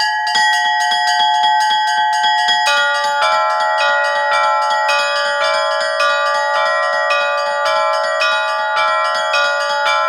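Orthodox monastery church bells being rung: several bells of different pitch struck in a quick, steady rhythm of about four strikes a second, their tones overlapping and ringing on. About three seconds in, the mix of bells changes and a lower bell joins in.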